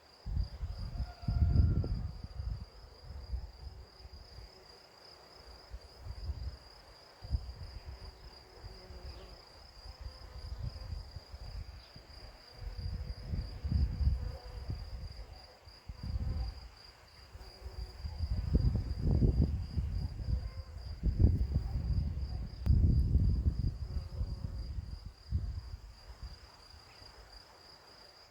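Crickets trilling without a break: a steady, high, finely pulsing chirr. Low gusty rumbles come and go beneath it, strongest about two-thirds of the way through.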